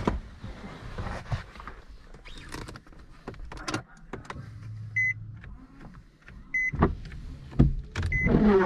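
Infiniti G35's push-button ignition switched on: a brief low hum, then the dashboard warning chime beeping about every second and a half. Near the end come knocks and the whir of a small electric motor.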